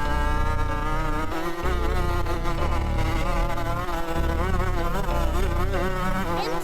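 Dirt bike engine buzzing, its pitch wavering up and down as the throttle is worked.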